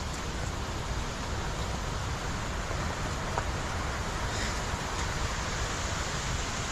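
Steady rushing noise of a flowing river.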